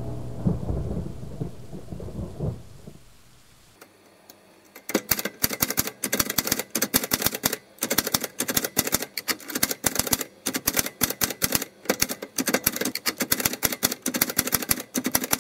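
A thunder-and-rain intro sting fades out over the first three seconds. After a short near-quiet gap, rapid, irregular typewriter-style key clicks start about five seconds in and keep going as the text is typed out.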